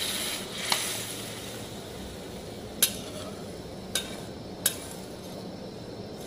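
Metal spatula stirring thin fish curry in a kadai, clinking sharply against the pan four times, over a steady faint hiss.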